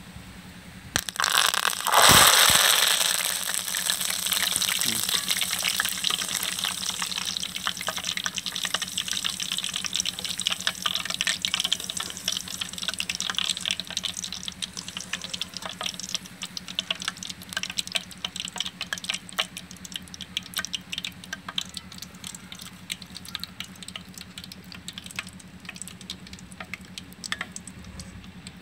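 Green leaves frying in hot oil in a metal wok. There is a sudden loud sizzle about a second or two in as they hit the oil, which dies down into dense crackling and popping that slowly thins out.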